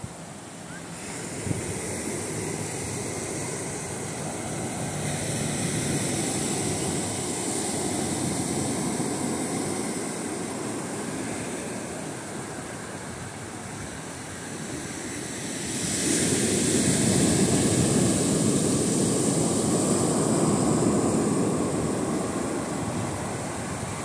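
Small waves breaking and washing up a sandy beach: a steady rush of surf that swells twice, loudest about two-thirds of the way through.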